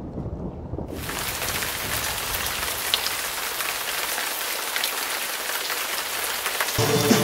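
Heavy rain falling as a steady hiss that comes in suddenly about a second in, over the fading tail of a low thunder rumble. Music starts at the very end.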